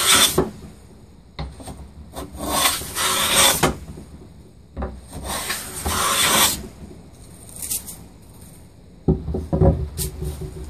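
Hand plane shaving a thin wooden strip in long rasping strokes: the tail of one pass, then two full passes. A few light knocks follow near the end.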